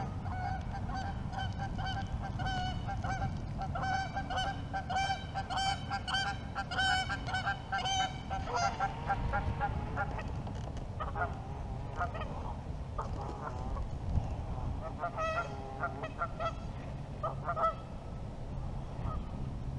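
Geese honking: a quick run of repeated honks for the first several seconds, then scattered honks.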